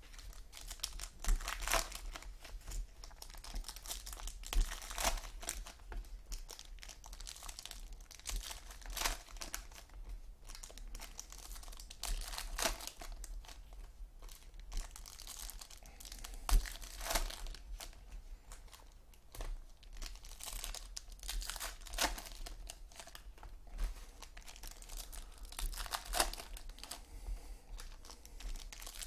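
Foil trading-card pack wrappers crinkling and tearing as they are opened by hand, in irregular bursts.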